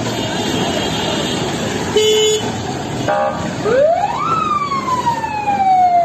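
Police vehicle siren winding up quickly about three and a half seconds in, then slowly falling in pitch, over the running engines of a slow-moving convoy. Before it, a short horn blast about two seconds in and a brief electronic blip.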